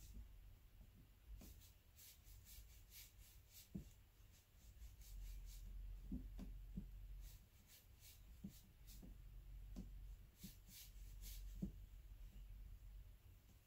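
Faint ticks and scratches of a small watercolour brush working paint in a palette and stroking paper, coming in clusters, with a few soft low knocks.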